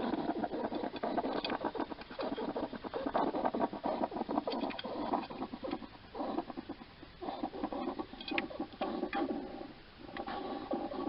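A hedgehog close to the microphone, snuffling and chewing: a dense run of rapid crackly clicks in spells with a few short pauses. The hedgehog has noisy breathing, which the owners put down to scarring on its lungs from a past respiratory infection or lungworm.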